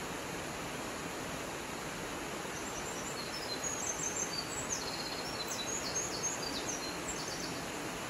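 Steady rushing of a small waterfall splashing into its pool. From about three seconds in to about seven, a small bird sings a quick run of short, high chirps over it.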